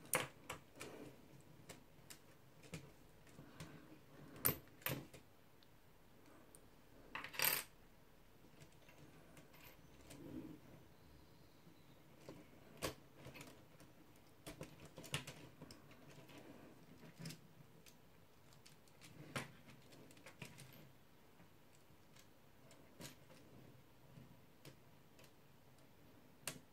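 Plastic Lego Technic parts clicking, knocking and rattling as they are handled and fitted on a wheel hub: scattered light clicks, with a sharper click about four and a half seconds in and a short rattle about seven and a half seconds in.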